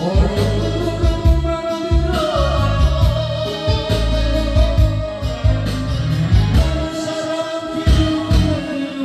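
Music: a song with a singing voice over a heavy bass line and a steady drum beat.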